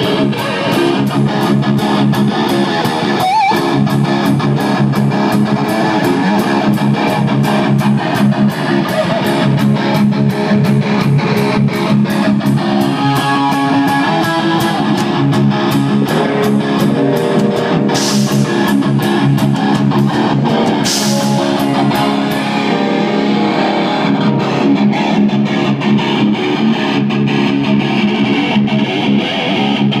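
Black Gibson Les Paul Custom electric guitar played loudly through an amplifier: a continuous riff of sustained chords with a fast, even picking rhythm.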